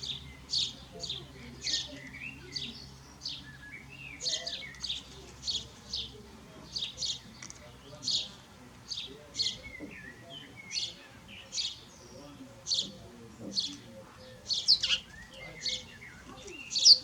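Birds chirping: a steady run of short, high chirps about two a second, with softer twittering between them.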